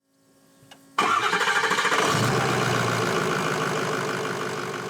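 An engine starts abruptly about a second in, right after a click, and runs with a fast, even pulsing that slowly fades.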